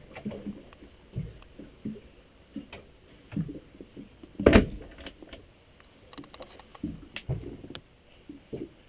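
Scattered light knocks and clicks, with one louder knock about halfway through.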